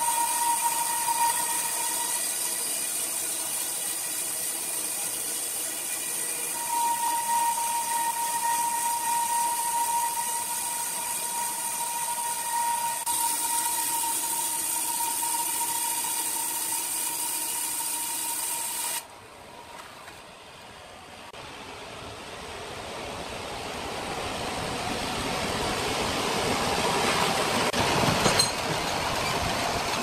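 Horizontal band sawmill running, its blade cutting lengthwise through a large log: a steady high whine over a hiss. About two-thirds of the way in the sound drops off suddenly, then builds again as the cut carries on, with a sharp click near the end.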